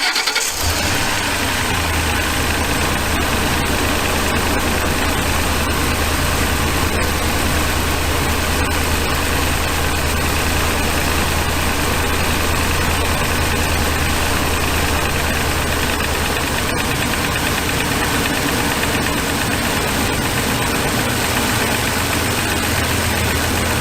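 2006 Ford E350's 5.4-litre V8 catching right at the start and then idling steadily.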